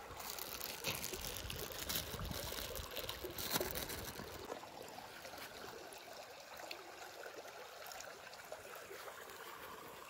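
Shallow stream water trickling and splashing, busier with small irregular splashes for the first four seconds or so, then settling to a fainter steady trickle.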